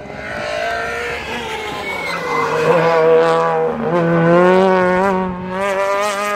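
Rally car engine approaching at high revs. The note drops briefly about four seconds in, then climbs steadily as the car accelerates out of a hairpin.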